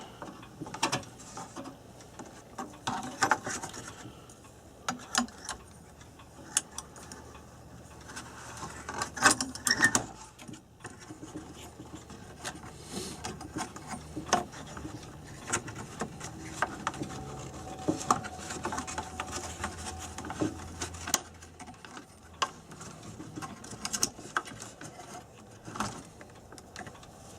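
Irregular clicks, taps and rubbing from hands fitting a light bulb and working its wiring into an old electric advertising clock, over a faint steady low hum.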